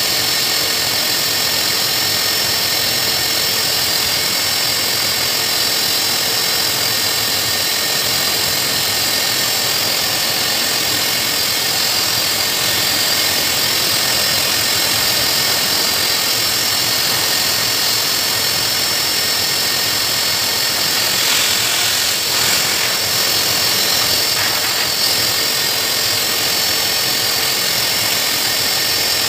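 Hose-type pet blower dryer running, blasting air through its nozzle into a Saint Bernard's coat: a steady, loud rushing of air with a constant motor whine.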